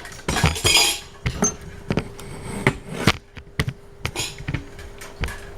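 Handling noises: a short rustle near the start, then a run of separate knocks and clicks, over a faint steady hum.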